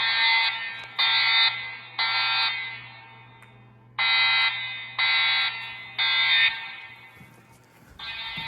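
EST Genesis speaker/strobes sounding a horn-like evacuation tone, the "masked integrity" tone, in a temporal-3 pattern: three half-second blasts, a pause, then three more. A quieter steady tone begins near the end.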